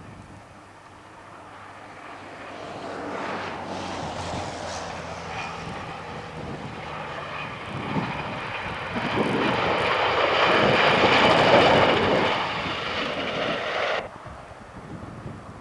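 Two-car diesel multiple unit passing: a steady low engine drone that grows louder, with wheel and rail noise swelling to a peak about eleven seconds in, then falling away. The sound cuts off suddenly near the end, leaving quieter wind-like noise.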